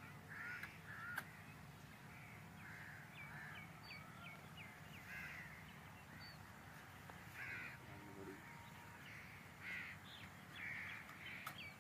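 Faint crows cawing repeatedly in the background, with smaller birds chirping in between, over a steady low hum.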